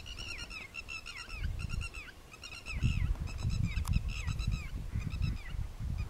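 Eurasian wigeon calling: many short whistled calls that bend downward in pitch, following one another several times a second. A low rumble comes and goes in gusts underneath.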